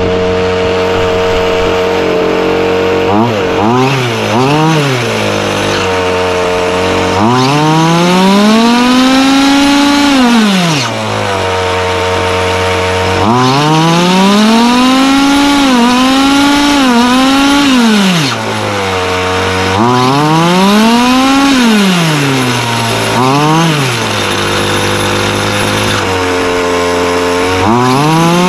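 Chung Yang 26cc two-stroke gas engine of a 1/5-scale RC car, idling and being revved repeatedly. Two quick blips come a few seconds in, then several longer pulls to high revs of a few seconds each, each dropping back to idle.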